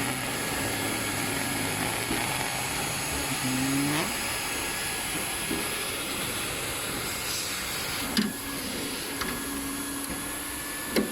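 TOP3400C hot-air welding machine running as it welds tarpaulin: a steady blowing hiss from its hot-air blower, with a short knock about eight seconds in.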